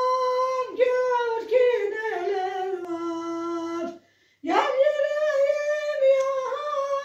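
A woman singing unaccompanied in a high voice, holding long notes with a slow waver. A phrase steps down in pitch, she pauses for breath about four seconds in, then starts a new phrase high again.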